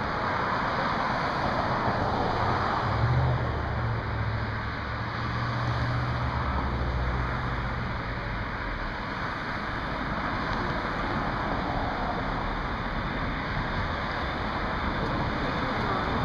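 Red electric commuter train approaching along the platform track: a steady rumbling rush of wheels and rails, with a low hum from about three to eight seconds in.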